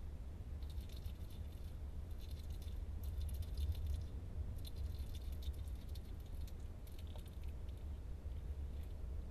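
A European hedgehog moving in its box, its spines and bedding giving fine crackling rustles in two longer spells, over a steady low hum.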